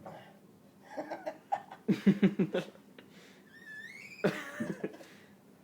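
People laughing: a burst of rapid 'ha-ha-ha' laughter about two seconds in, a high rising squeal a second later, then more laughter.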